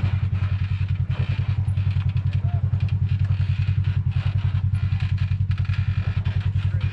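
Toyota FJ Cruiser's 4.0-litre V6 running steadily at low revs while crawling off-road: a loud, even, low rumble with a fast regular pulse. Light knocks and rattles come through over it.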